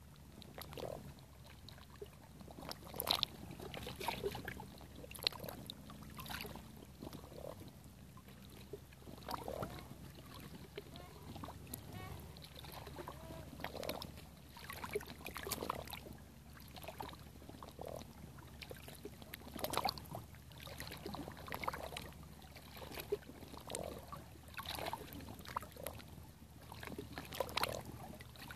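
Small waves lapping against shoreline rocks on calm sea water, with irregular soft splashes every second or two.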